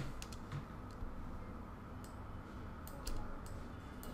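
Faint, scattered clicks of a computer mouse, a handful of separate clicks a second or so apart, over a low steady hiss.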